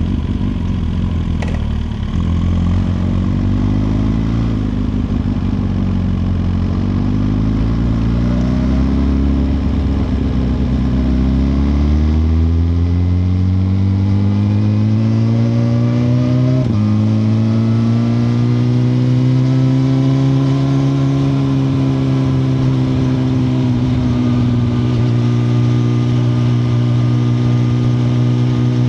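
2021 Suzuki GSX-R1000R's inline-four engine running low at first, then revving up steadily, dropping sharply at an upshift a little past halfway, and then holding a steady cruise with small rises and falls in pitch. A short click sounds near the start.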